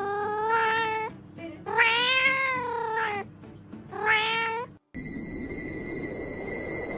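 Domestic cat meowing three times: drawn-out meows that rise and fall in pitch, the middle one the longest. About five seconds in the sound cuts to a steady hiss with several constant high-pitched tones.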